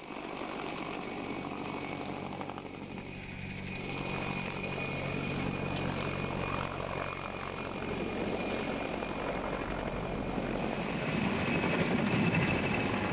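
Helicopter flying low overhead: a steady high turbine whine over the beat of the rotor, getting louder in the last few seconds as it comes close.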